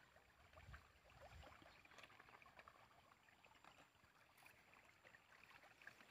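Near silence, with faint small splashes and ticks of muddy water as a small monkey wades through a shallow puddle.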